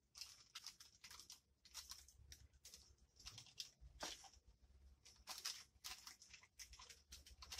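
Faint rustling and crinkling of baking paper, with soft scattered taps, as gloved hands press a sheet of it down onto warm cookies in a metal baking tin.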